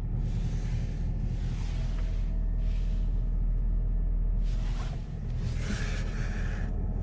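Steady low rumble of a vehicle heard from inside, with repeated swells of rushing hiss.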